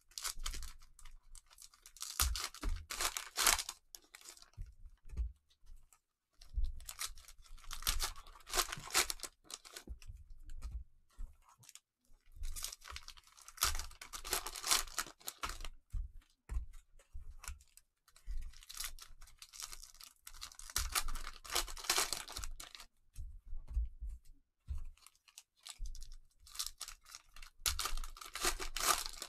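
Plastic cello wrappers on Panini Mosaic trading-card packs being torn open and crinkled by gloved hands. The tearing and crinkling comes in bursts every few seconds, one pack after another.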